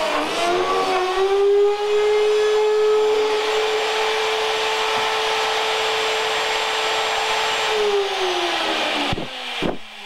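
Mortising router's motor whining at a steady high pitch as its bit cuts the lock mortise in a door's edge. The pitch wavers in the first second or so, then holds steady, and sinks near the end, followed by a few sharp knocks.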